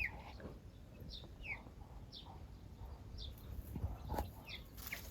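Young chicks peeping: short, high chirps every half second or so, each dipping slightly in pitch, with a brief click near the end.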